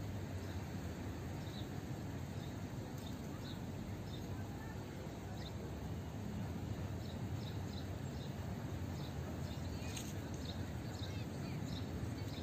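Outdoor park ambience: small birds chirping in short, scattered chirps, a few more together near the end, over a steady low rumble.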